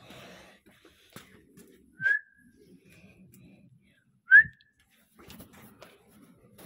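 A person whistles twice, two short sharp whistles about two seconds apart, the second one louder, calling a dog.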